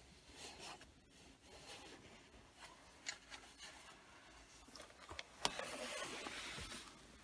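Faint rubbing and rustling of hands handling insulated wires and spade connectors, with a few small clicks; a louder rustle comes about five and a half seconds in.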